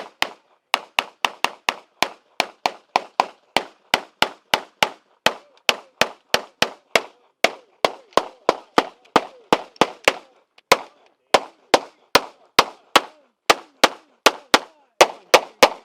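Handgun gunshots from several shooters firing at a steady rhythm, about three shots a second. The shots fall slightly out of step with each other, and each crack has a short echo.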